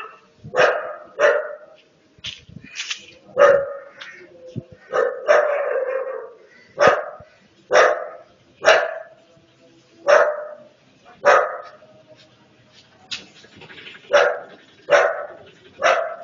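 Street dog barking repeatedly in short, sharp, loud barks, about one a second, with a longer run of barking around five seconds in and a brief pause near twelve seconds.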